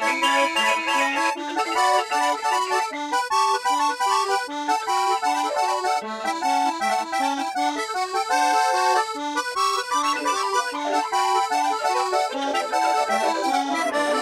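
Instrumental music with a quick, running melody of clear pitched notes.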